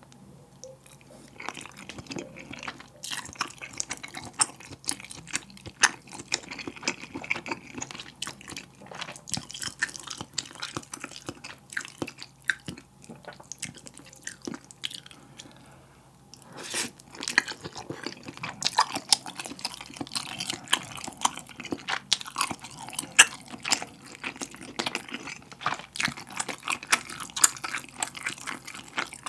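Close-miked chewing of tteokbokki, chewy rice cakes and fish cake in a thick spicy sauce, with many small mouth clicks and smacks. Partway through the chewing eases off briefly, then a sharp click is heard and the chewing picks up again.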